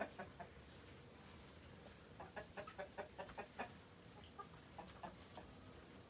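Chickens clucking softly: a quick run of about nine short clucks a couple of seconds in, then a few scattered softer clucks.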